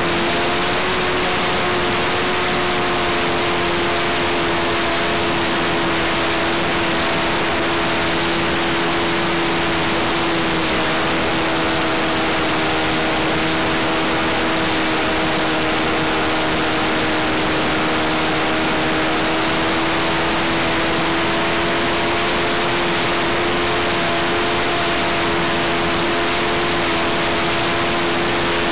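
O.S. .95 model aircraft engine running steadily in flight, heard from onboard: a constant buzzing drone that rises slightly in pitch at the very start, under a heavy rush of wind noise.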